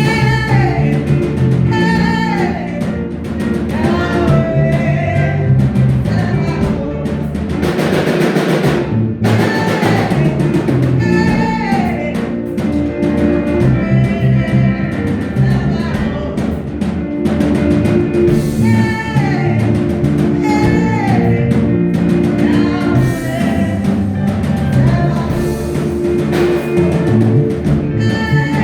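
Praise and worship music from a band: singing over sustained low notes and a drum beat, with a bright crash of noise about eight seconds in.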